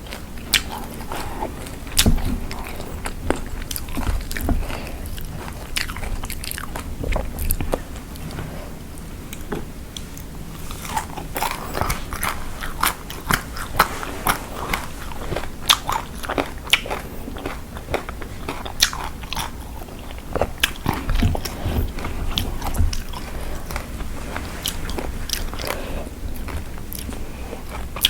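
A person biting and chewing spicy lime salad close to the microphone: a steady run of short, crisp crunches and clicks.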